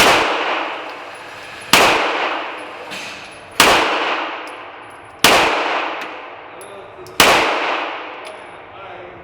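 Glock 17 9mm pistol firing five single shots about two seconds apart, each a sharp crack followed by a long echoing decay.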